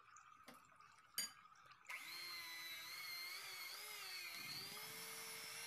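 Electric hand mixer starting up about two seconds in and running steadily, its beaters working softened butter in a glass bowl. Its whine rises a little in pitch past the middle. A single sharp click comes shortly before it starts.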